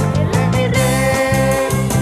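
Live praise-band music: electric bass guitar playing a steady rhythmic line under a male singer who holds one long note into a microphone.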